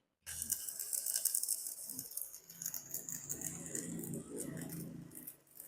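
Stick (MMA) welding arc from a Kobe 315A inverter welder burning a 3.2 mm electrode on thick steel plate: a dense crackling sizzle. It starts just after the beginning and thins to scattered crackles near the end.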